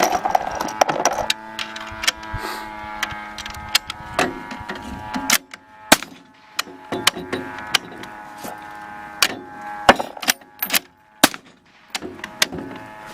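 Suppressed rifle fired in a string of sharp shots at irregular intervals, some in quick succession, over a steady hum.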